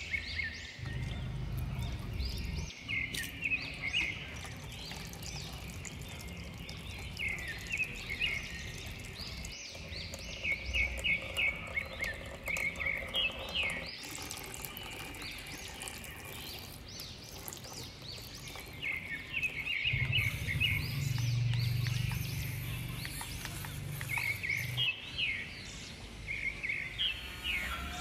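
Small birds chirping in short, repeated bursts throughout, over a low hum that comes and goes and is loudest about two-thirds of the way through.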